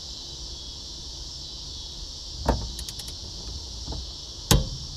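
Click-type torque wrench clicking on the 19 mm steering shaft nut as it reaches its set torque: a knock about halfway through, a few light ticks, then a loud sharp click near the end. A steady chorus of crickets runs underneath.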